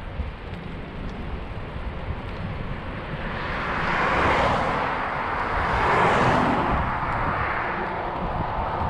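Road traffic heard from a bicycle: a steady low wind rumble on the camera microphone, with vehicles passing close by that swell and fade about four and six seconds in.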